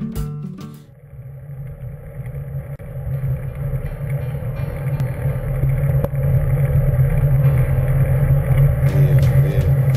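Music cuts off within the first second, giving way to a steady low rumble of riding along a path, wind on the microphone mixed with rolling noise, that grows gradually louder.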